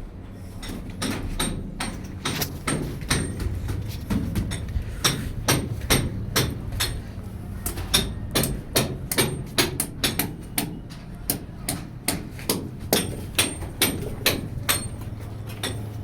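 Hammer blows struck in a fast, irregular run of about two to three a second, over a steady low hum.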